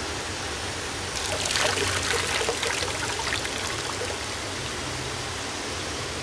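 Shallow seawater lapping and trickling, with light splashing between about one and three seconds in as hands reach into the water.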